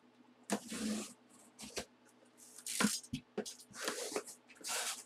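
Cardboard box being opened by hand: a few short bursts of rustling and scraping cardboard as the flaps are pulled back, the sharpest just under three seconds in.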